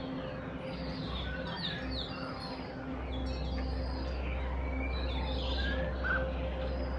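Starlings in a tree calling busily, a continuous mix of chirps, whistles and quick squeaky sweeps, with a steady low hum underneath.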